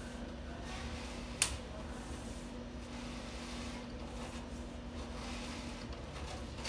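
Steady low electrical hum with a faint constant tone, and one sharp click about a second and a half in.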